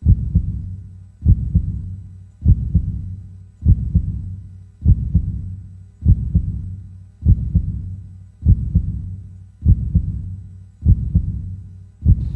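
Heartbeat sound effect: slow, deep double thumps, a strong beat followed closely by a softer one, repeating evenly about once every 1.2 seconds.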